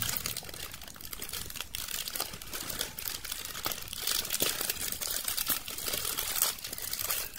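A plastic snack packet crinkling and crackling irregularly as both hands pull at its sealed top to tear it open.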